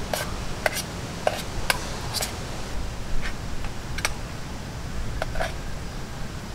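An eating utensil clinking and scraping against a small metal camp cookware pot as someone eats from it: light, irregular clicks, about nine of them, unevenly spaced.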